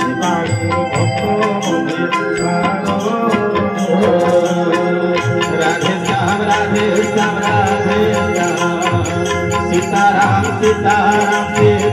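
Instrumental passage of a bhajan: an electronic keyboard holds a melody over a steady tabla rhythm.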